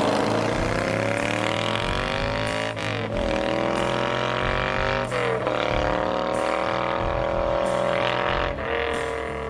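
Moto Guzzi V7 Sport's 748 cc transverse V-twin accelerating hard through the gears. The engine note climbs in each gear and drops at the shifts, about three, five and eight and a half seconds in.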